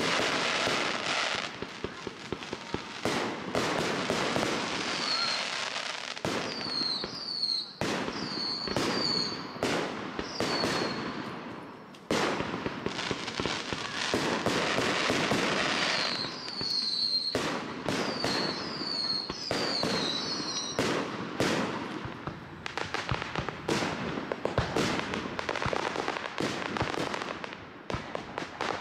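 Aerial fireworks shells bursting in rapid succession: many sharp bangs and crackling, with a brief lull about twelve seconds in. In two stretches, a run of short, high, falling whistles sounds over the bangs.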